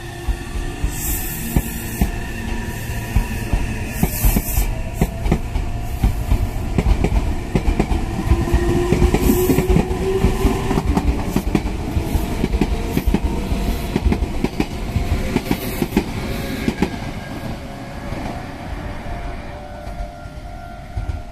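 Meitetsu 2200-series and 3100-series electric train pulling away from the station: a motor whine rises in pitch as it accelerates over a quickening clatter of wheels on rail joints. The clatter thins out and fades in the last few seconds.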